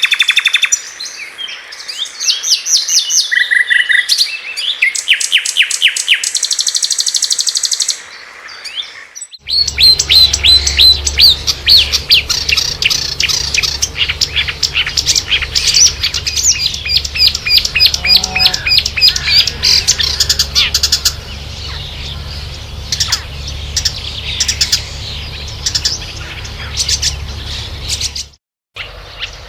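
Marsh warbler singing its fast, varied song, a rapid run of chattering notes, trills and mimicked calls of other birds. About nine seconds in, it breaks off briefly and a second song recording follows with a low steady hum underneath; near the end there is another short break.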